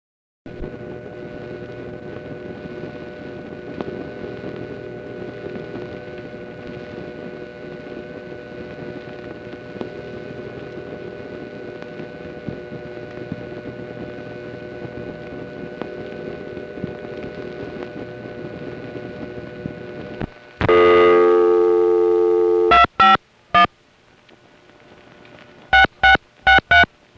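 A 1970s telephone line on a No. 5 Crossbar office. At first the phone is on the hook and the line hisses with many faint, steady central-office whines. About twenty seconds in, the phone is picked up and a loud dial tone comes on. The tone breaks off as three touch-tone digits are keyed, and four more touch-tone digits follow near the end: the ringback circuit's three-digit code, then the line's own last four digits.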